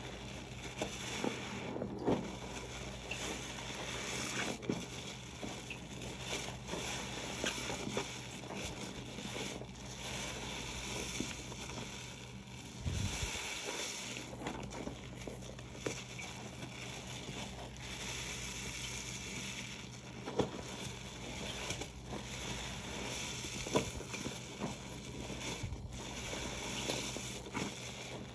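Soapy dish sponge being squeezed and worked, a wet squishing with many small crackles and pops of suds.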